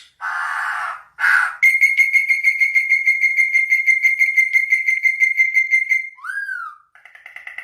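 A series of bird calls: two short harsh, rasping calls, then a long, rapid trill held on one steady high pitch for about four seconds, then a short downslurred whistle and a pulsed call near the end.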